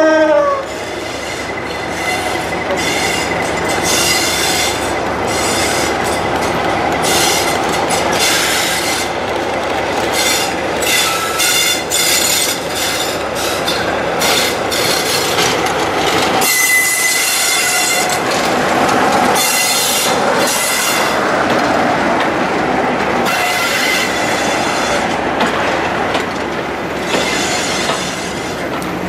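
Class 47 diesel locomotive (Sulzer twelve-cylinder engine) passing at speed with a train of coaches. The engine runs under power as it approaches, then the passing coaches bring a run of rhythmic wheel clicks over the rail joints and stretches of high-pitched wheel squeal. The tail of the locomotive's horn fades in the first half-second.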